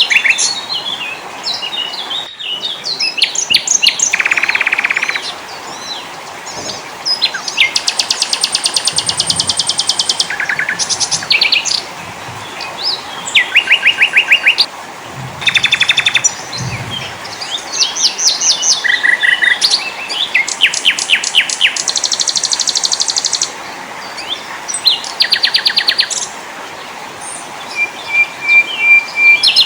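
A mix of small songbirds calling over one another: short high chirps and whistles with fast, buzzy trills of rapidly repeated notes, each run lasting about a second or two.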